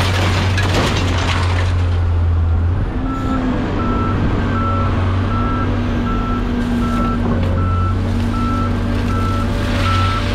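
A heavy vehicle's engine running steadily, with its reversing alarm starting to beep about three seconds in and repeating evenly, about one and a half beeps a second.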